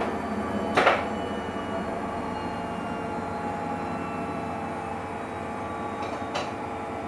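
Samsung Eco Bubble washing machine running its cycle: a steady motor hum with several held tones, broken by a sudden loud burst about a second in and a smaller one near the end.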